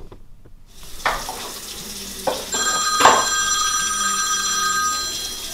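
A mobile phone ringtone plays several steady held tones from about two and a half seconds in, over a kitchen tap running into the sink as dishes are washed, with a couple of sharp knocks.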